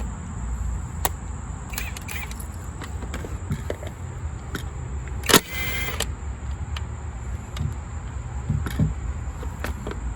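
Metal hand tools clicking and clattering as sockets are swapped and fitted, with one louder, half-second rattling burst about halfway through, over a steady low rumble.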